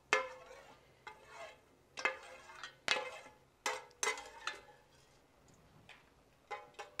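Enamel spoon stirring whole spices in oil in an enamelware frying pan, knocking and scraping against the pan in sharp strokes about once a second, with a short pause about five seconds in before two more.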